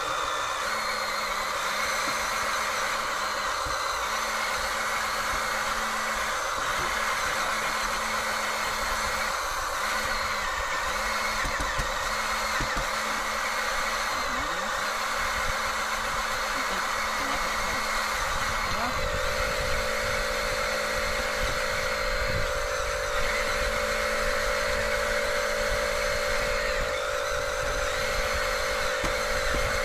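Huina remote-control toy construction vehicles running: small electric motors and gearboxes whirring steadily, with a low motor note cutting in and out every few seconds as the controls are worked. A second, higher steady whine joins about two-thirds of the way through.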